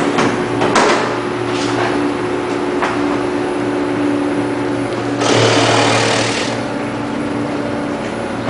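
Electric vegetable cutting machine running with a steady motor hum, with a few knocks in the first second; about five seconds in, a louder rush of noise for over a second as produce goes through the blades.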